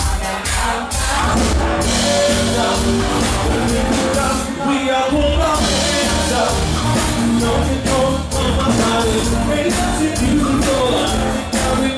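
Live band playing an up-tempo dance song: drum kit keeping a steady beat under bass guitar, keyboard and electric guitar, with a singer's voice over the top, heard with the ring of a large room.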